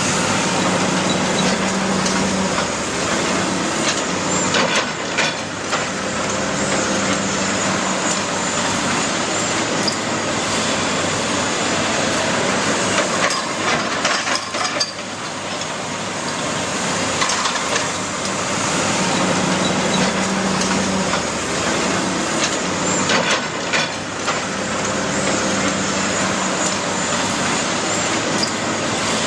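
Heavy demolition machinery at work: a diesel engine running under load with a recurring low hum, over a steady din of cracking, scraping and falling debris as the building is broken up.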